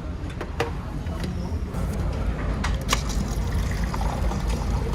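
Steady low rumble of a car ferry's engines running under way, with a few sharp clicks and clinks over it, the sharpest about three seconds in.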